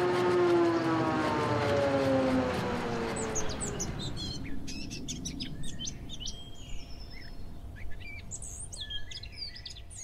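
A droning tone with several overtones slides down in pitch and fades over the first three seconds, giving way to birds chirping and singing in quick, varied calls.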